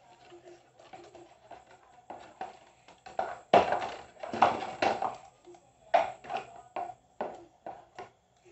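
Cardboard packaging being handled: a card insert and box pieces rubbing and rustling, with a string of short, irregular knocks and scrapes, loudest in the middle and several smaller ones near the end.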